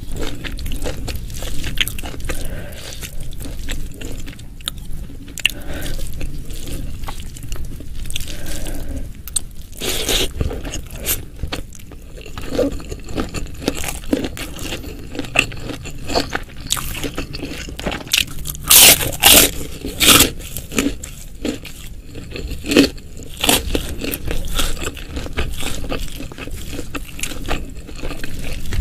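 Close-miked eating: crunchy bites and wet chewing of food, with a run of louder crisp crunches about two-thirds of the way in.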